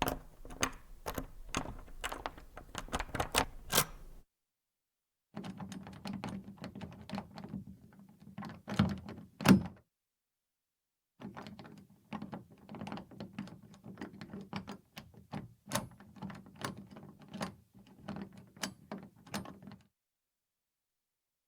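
Metal door latch being forced and worked back and forth: rapid, irregular clicks and rattles of metal on metal in three runs with silent gaps between them, and a sharp clack about nine and a half seconds in.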